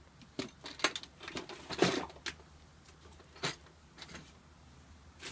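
Metal latches of an aluminium tool case clicking open and the case and tools inside knocking as it is opened: a handful of separate clicks and clacks.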